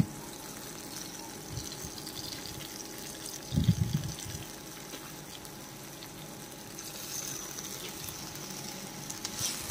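Sticks of cut taro root dropped by hand into hot oil in a frying pan, with a soft, steady sizzle. A few dull low thumps about three and a half seconds in.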